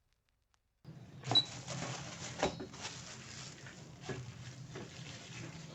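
Handling clicks and knocks on a small digital scale: a few sharp taps over a low steady hum, with a very short high beep about a second in.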